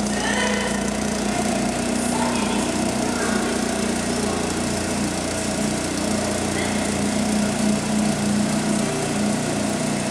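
Renault Clio 16S's 16-valve four-cylinder engine idling steadily.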